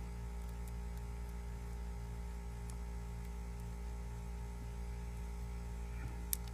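Steady low electrical hum, with a few faint ticks and one sharper click near the end.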